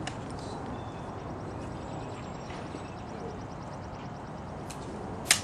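Hushed outdoor crowd ambience while a soldier's rifle is inspected by hand. There is a faint click at the start, and a single sharp click shortly before the end from the rifle handling.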